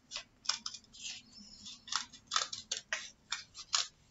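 Small kid's scissors cutting through a stack of folded construction paper: an uneven run of about a dozen short, crisp snips.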